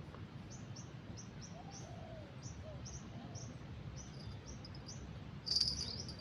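A small bird calling over and over with short high chirps, about two a second, with a few lower sliding calls from another bird. Near the end a louder, shrill, steady sound with clicking sets in.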